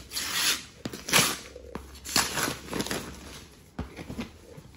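Gift wrapping paper being torn off a cardboard box and crumpled by hand: a run of quick, loud rips and rustles, fading to a few lighter rustles near the end.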